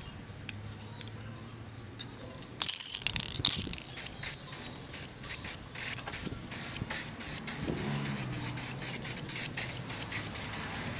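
Aerosol spray paint can: a few sharp clicks about two and a half seconds in, then the spray hissing in quick repeated bursts as matte black paint goes onto a car roof.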